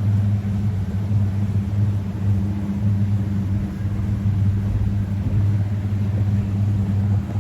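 Boat engine running at a steady speed, a constant low hum with no change in pitch.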